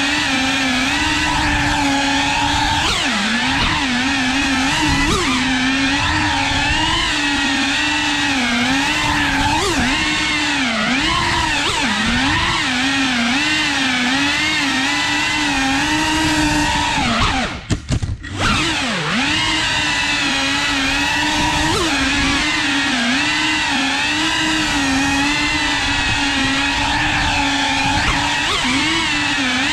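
Cinewhoop FPV drone's brushless motors and ducted propellers whining, the pitch wavering up and down constantly with the throttle. About 17 seconds in the motors briefly drop away, then spool back up.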